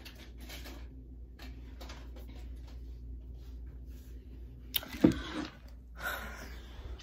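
Phone being picked up and handled close to its microphone: light rustling, then a sharp knock about five seconds in and more rustling just after, over a steady low hum.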